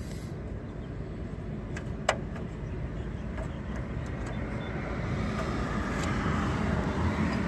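Steady low rumble of road traffic, growing louder as a vehicle comes closer in the last few seconds, with one sharp click about two seconds in.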